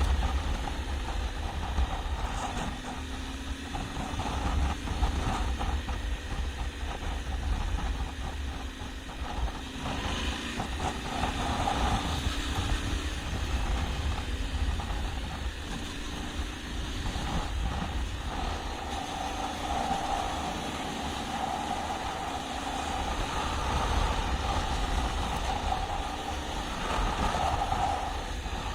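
Yamaha Ténéré 700's parallel-twin engine running as the bike is ridden off-road, its note rising and falling slightly with the throttle. A heavy low rumble and frequent short knocks run under it.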